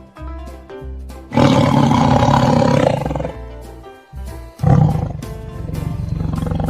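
Tiger roaring twice over light background music. The first roar comes about a second in and lasts under two seconds. The second starts about halfway through and runs on as a long, pulsing rumble.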